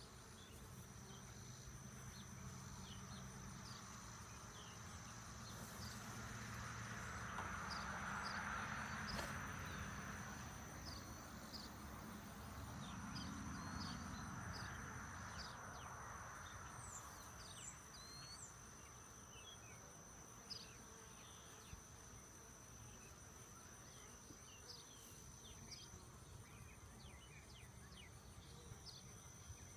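Honey bees buzzing around an opened hive, a low hum over a steady high-pitched insect trill and short chirps. The sound swells louder twice, about a quarter and about halfway through.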